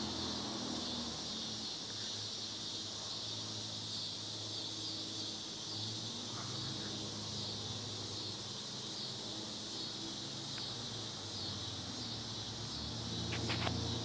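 Steady high-pitched insect chorus, with a low hum underneath; a few sharp clicks near the end.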